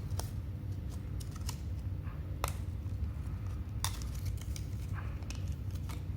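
Scattered light clicks and taps of small hard parts being handled: a laptop RAM module and the opened laptop's plastic underside, over a steady low hum.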